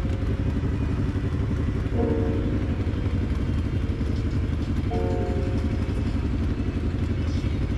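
Motorcycle engine running steadily while riding, heard from on board, with faint background music entering in short chords about every three seconds.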